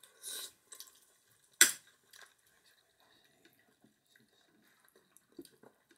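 Eating at the table: a short slurp of soup from a spoon, then one sharp clink of a spoon against a bowl about a second and a half in, followed by faint small clicks of cutlery and dishes.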